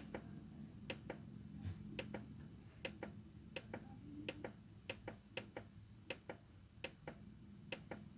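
Sharp clicks of a Korg synthesizer's front-panel buttons being pressed, irregularly, about one to two a second, while paging through program edit parameters. A faint steady hum runs underneath.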